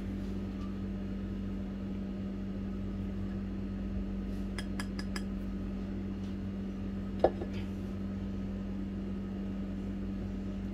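Kitchen utensils clinking against a glass mixing bowl as ground spices are added to yogurt: a quick run of four or five light clinks about halfway through, then one sharper knock a couple of seconds later. A steady low hum runs underneath.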